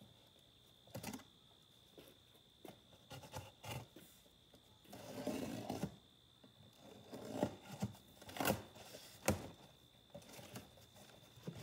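Cardboard box and packaging being opened and handled: scattered sharp clicks and knocks, with a noisy rustle lasting about a second near the middle.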